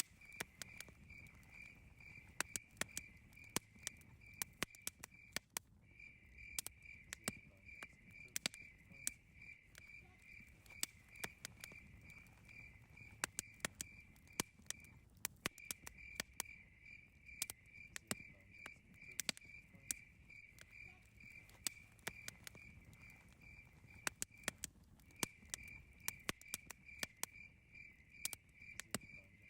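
Campfire crackling, with sharp pops scattered irregularly throughout. Behind it a cricket chirps in a steady high pulsing run, a few chirps a second, which breaks off briefly three times.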